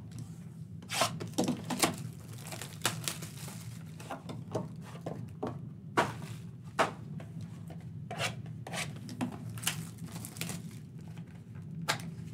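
Sealed cardboard trading card boxes being picked up, stacked and set down on a table: a string of light knocks and taps, with crinkling and tearing of plastic shrink wrap as one box is opened.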